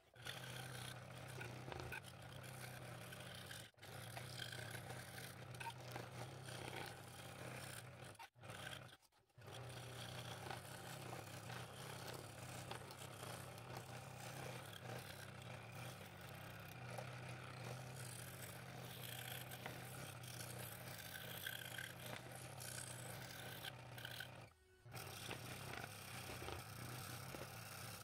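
Scroll saw running steadily, its blade cutting through light walnut: a low, even motor hum under a fine rasping cut. The sound drops out briefly a few times.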